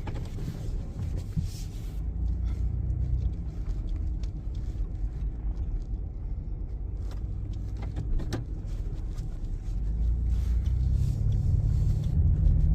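Car driving at speed, heard from inside: a steady low road and drivetrain rumble that grows louder over the last few seconds, with a few faint clicks.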